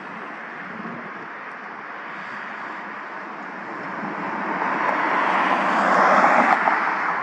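A car driving past close by. Its engine and tyre noise swells to a loud peak about six seconds in and then fades, over a steady background of vehicle noise.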